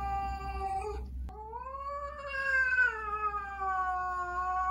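A cat yowls in two long, drawn-out calls. The first ends about a second in; the second swells up in pitch and then slowly sinks. This is the tense caterwaul of a stressed cat confronting an unfamiliar cat.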